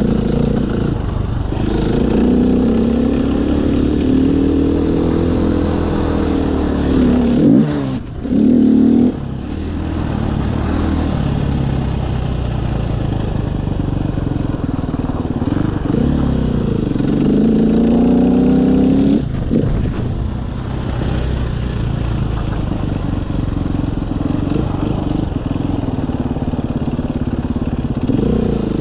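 KTM EXC enduro motorcycle engine ridden hard on a snowy track, its pitch repeatedly climbing under acceleration and dropping through gear changes and throttle-offs. The throttle is chopped briefly about 8 seconds in, followed by a short loud burst of revs, and again around 19 seconds; in the last part the engine runs steadier and lower as the bike eases off.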